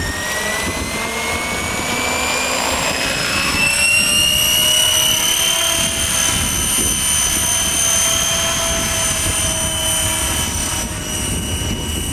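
Radio-controlled model helicopter whining as its rotor spools up: the pitch rises over the first few seconds, then holds steady as it lifts off and flies.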